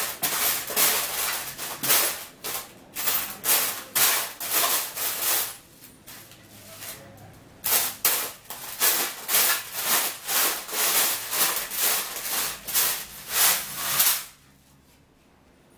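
Screws and small metal fittings rattling and clinking in a metal tray as hands rummage through them, in repeated bursts about two a second. The rattling pauses briefly about six seconds in and stops about a second and a half before the end.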